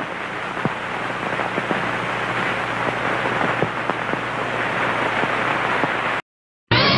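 Steady hiss and crackle with a low hum: surface noise of an old film soundtrack with no programme sound on it. About six seconds in it cuts to a moment of dead silence, and orchestral music starts just before the end.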